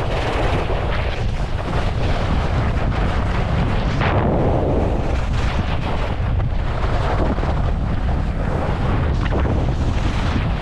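Wind buffeting the camera microphone on a downhill ski run, a loud steady rumble with skis scraping and chattering over the snow, swelling briefly about four seconds in.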